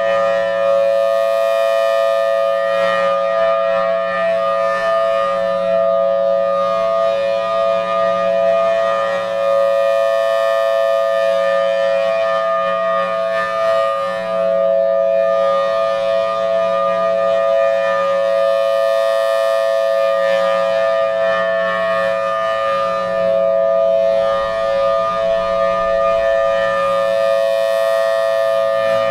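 Federal Signal Thunderbolt 1003 rotating civil-defense siren sounding its steady Alert signal, a held two-note chord from its 5/6-port chopper. The sound swells and fades about every nine seconds as the rotating horn sweeps past.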